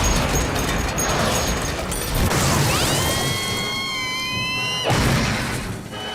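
Cartoon sound effects: a loud rattling noise, then several whistling tones, one rising in pitch, ended by a sudden crash about five seconds in.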